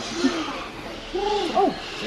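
A captive bird giving short hooting calls that rise and fall in pitch, about three of them, one at the start and two close together about a second and a half in. The calls sound like a bird imitating a monkey.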